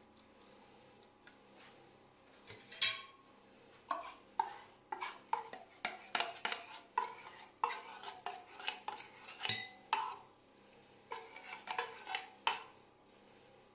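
Metal spoon scraping condensed milk out of an opened tin can, a run of short, irregular scrapes and clinks of metal on metal, a few a second. It starts about three seconds in and stops shortly before the end.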